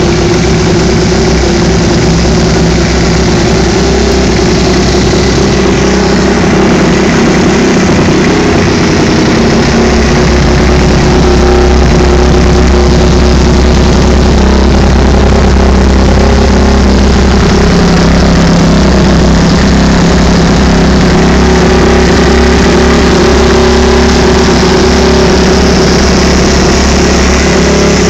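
Kawasaki KX 250F motocross bike's single-cylinder four-stroke engine running loudly at a fairly steady speed. Its note shifts lower and fuller about nine seconds in.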